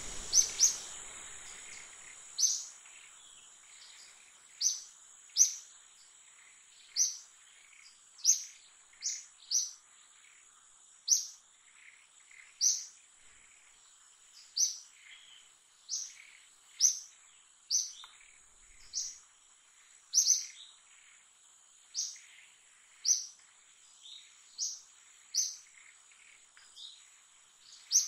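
A bird chirping over and over, short high chirps coming roughly once a second, over a faint steady high-pitched whine.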